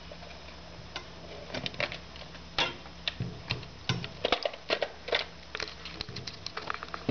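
Clicks and plastic knocks from a Canon 814XL-S Super 8 camera as its film compartment door is opened and the Super 8 film cartridge is pulled out. The clicks come thick and sharp through the middle, sparser at the start and end.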